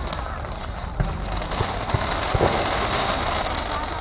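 Fireworks display: several sharp bangs and pops from launching and bursting fireworks, about half a second apart in the middle of the stretch, over steady background noise.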